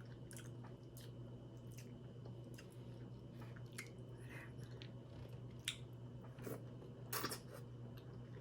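A person chewing food close to the microphone, with small wet mouth clicks throughout and a few louder clicks later on.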